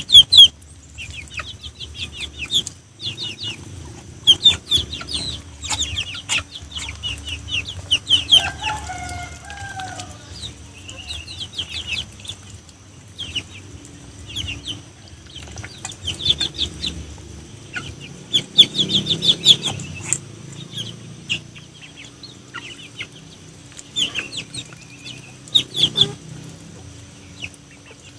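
Young chickens peeping over and over in short high chirps while they peck food from a shared bowl, with sharp taps of beaks against the bowl. A lower call of a few notes comes in about eight seconds in.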